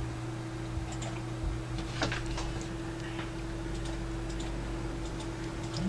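Quiet room tone: a steady low hum with a few faint, irregular ticks.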